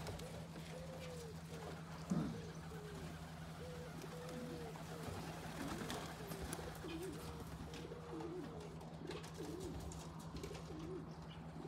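Domestic pigeons cooing, many short overlapping coos one after another, over a steady low hum. A single sharp knock about two seconds in.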